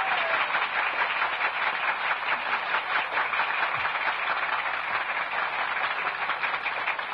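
A large crowd applauding, a dense steady patter of many hands clapping that begins to die away near the end.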